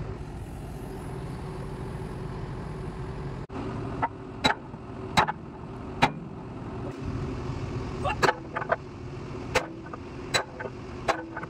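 Excavator's diesel engine running steadily at idle, with sharp metal-on-metal hammer blows from about four seconds in, coming unevenly every half second to a second, as in hammering parts home while fitting the excavator bucket.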